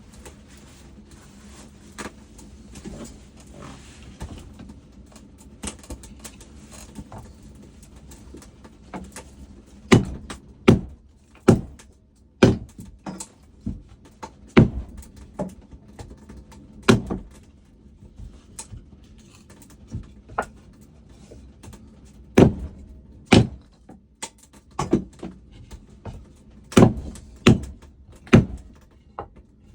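Firewood being split, heard as sharp chopping strikes landing irregularly, often less than a second apart. Fainter knocks from the wood being handled come before the strikes begin, about ten seconds in.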